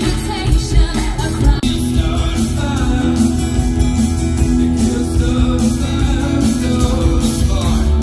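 Live band music in a theatre. A three-woman vocal group sings over the band, then after about a second and a half it cuts to a different song: a male singer's band with acoustic guitar and drums.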